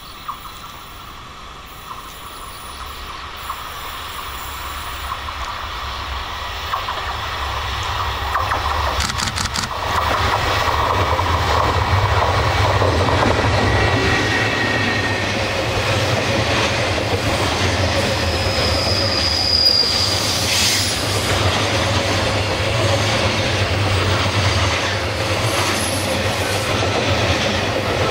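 JR Freight EF210 electric locomotive and its container freight train approaching on curved track, growing louder over about ten seconds, then the container wagons rolling past with a steady rumble of wheels on rails. Brief high-pitched wheel squeals come through twice while the wagons pass.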